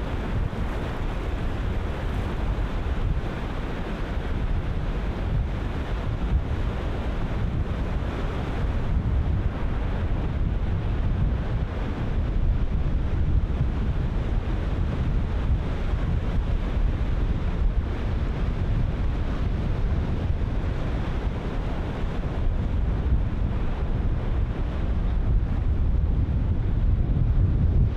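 Ocean surf breaking continuously, with heavy wind buffeting the microphone as a gusty low rumble.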